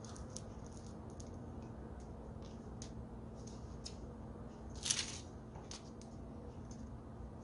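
Faint small clicks and rustles of fingers handling wire and small parts while fitting a new power cord into a hand grinder, with one brief louder scrape about five seconds in. A low steady hum runs underneath.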